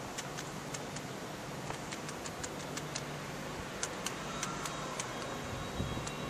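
Class 424 S-Bahn electric multiple unit approaching at low speed: a faint steady hum and hiss with scattered sharp ticks. About two-thirds of the way through a thin electric whine sets in and slowly falls in pitch as the train slows.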